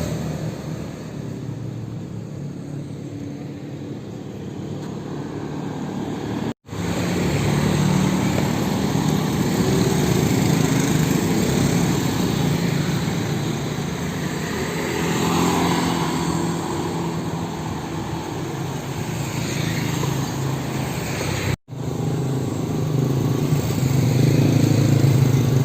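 Road traffic: truck engines running and vehicles passing, the sound swelling and easing as they go by. It drops out completely for an instant twice, at cuts in the recording.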